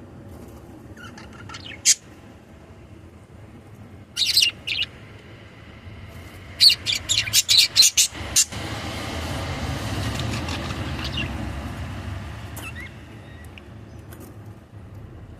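Small pet parrots chirping in short, sharp bursts: a lone chirp, then a brief cluster, then a quick run of chirps. A low rushing rumble swells and fades in the middle.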